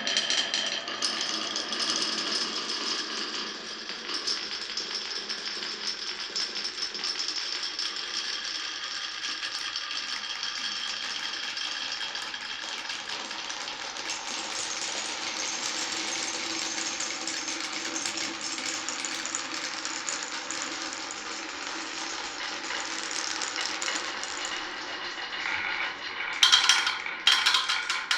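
Glass marbles rolling and rattling along a marble run track in a steady stream, with sharper clacks and knocks near the end as they hit wooden pieces.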